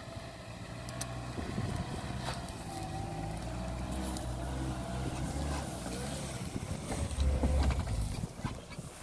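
Suzuki Jimny 4x4's four-cylinder petrol engine pulling the vehicle up a rough slope off-road, getting louder as it passes close by, loudest near the end and then falling away. Scattered sharp clicks of stones under the tyres.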